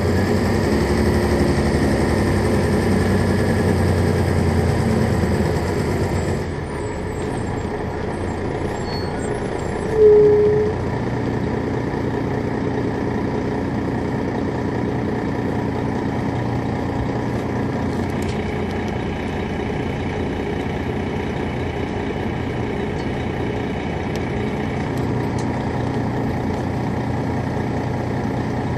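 2001 MCI D4000 coach's Detroit Diesel Series 60 engine running, pulling harder for the first six seconds, then easing off and running steadily. A short, loud single tone about ten seconds in.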